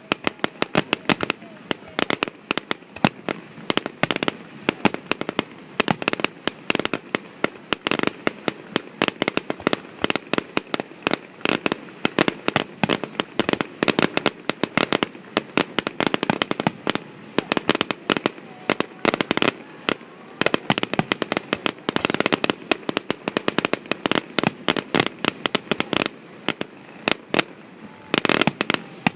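Fireworks finale: a dense, continuous barrage of aerial shell bursts and crackling bangs, many per second, with heavier volleys about three-quarters of the way through and again near the end.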